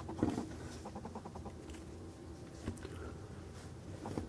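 Faint handling noises of a die-cast metal scale model excavator being turned over in the hands: a few light clicks and taps over a low steady room hum.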